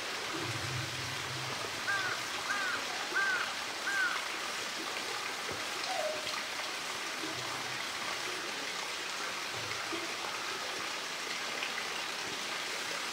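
Steady rush of running water from the polar bear enclosure's pool. Four short high chirps come about two to four seconds in.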